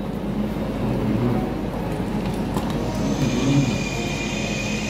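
Busy railway station concourse ambience: a steady hum of crowd noise with faint, indistinct voices. About three seconds in, a steady high-pitched whine comes in over it.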